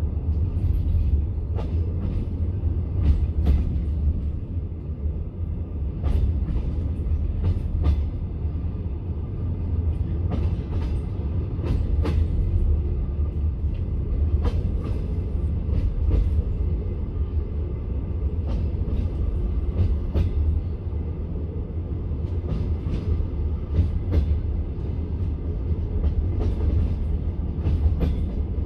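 Passenger train carriage wheels running on the rails: a steady low rumble broken by sharp clicks every second or two as the wheels pass over rail joints.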